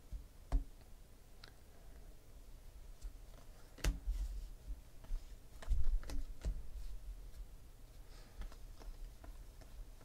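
A stack of trading cards handled and flipped through by hand, giving irregular light clicks and taps as the cards slide and snap against each other; the sharpest comes about four seconds in, with a cluster around six seconds.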